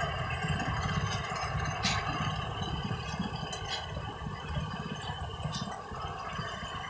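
Concrete mixer truck's diesel engine running steadily at idle, with a few short, sharp clinks of metal.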